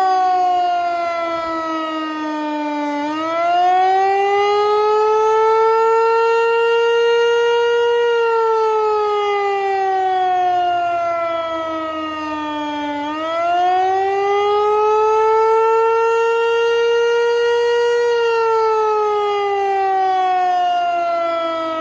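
Eclipse 8 tornado siren sounding a wail in a scheduled test: a loud, clean tone that rises over a few seconds, holds, then falls, in a slow cycle about ten seconds long, rising twice.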